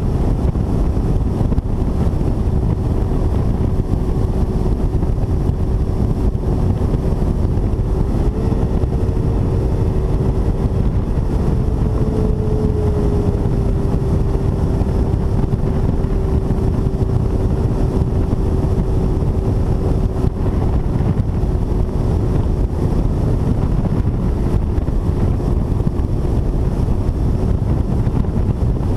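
Bass boat's outboard motor running steadily at cruising speed, with heavy wind rumble on the microphone. The engine's whine steps up in pitch about eight seconds in and eases back down a few seconds later.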